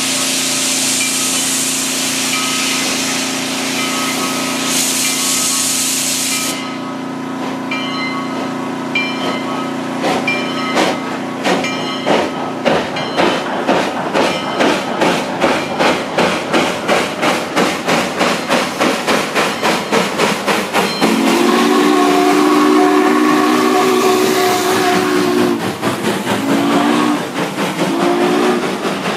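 SP&S 700, a 4-8-4 steam locomotive, starting away and accelerating hard. Steam hisses steadily for the first six seconds or so. Then the exhaust chuffs begin slowly and quicken steadily to about three a second, and its chime whistle sounds one long blast about twenty-one seconds in, followed by two short blasts as it comes past.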